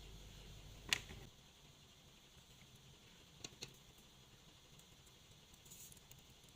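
Small handwork noises while a cardboard gun part is being built: one sharp click about a second in, then two light ticks in quick succession a little after three seconds, over a very quiet background.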